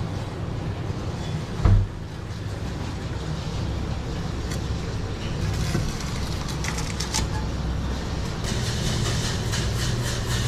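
A large knife cutting a yellowfin tuna on a plastic cutting board, with scattered knocks and scrapes of the blade and one heavy thump about two seconds in, over a steady low machine hum. A patter of fine clicks joins near the end.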